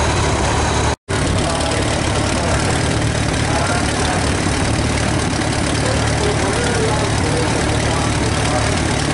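Small vintage Allis-Chalmers tractor's four-cylinder engine idling steadily, with faint crowd voices behind it. The sound cuts out briefly about a second in.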